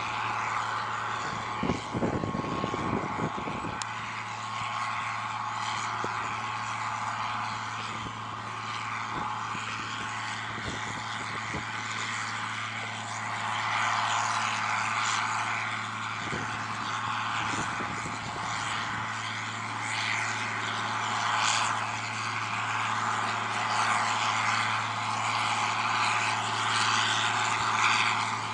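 John Deere 4650 tractor's six-cylinder diesel engine running steadily under load while pulling a bean planter, a constant low drone. Brief low rumbling about two to three seconds in.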